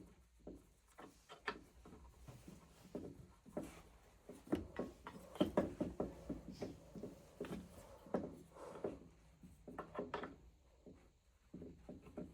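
Oil burner parts being handled as the burner motor is taken off and a new pump coupling is fitted: irregular clicks, knocks and rubbing, busiest in the middle.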